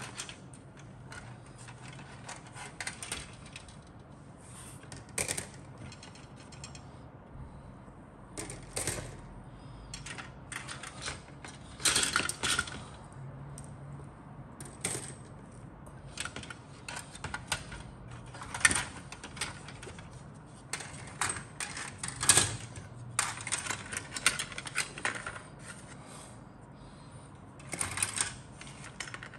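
Plastic model-kit sprues clicking and clattering against each other and the cardboard box as they are handled and lifted out, in irregular runs of rattles and light knocks with short pauses between.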